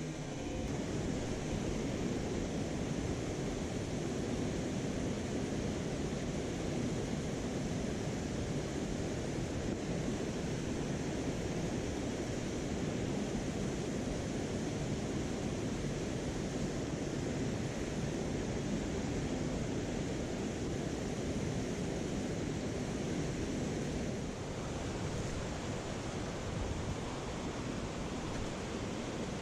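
Mountain stream water rushing steadily over rocks, a constant even roar, dipping slightly in level about 24 seconds in.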